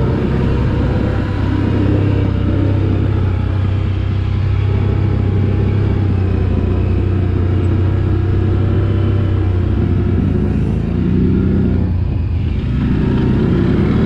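Off-road vehicle engine running steadily under throttle, easing off briefly near the end and then picking up again.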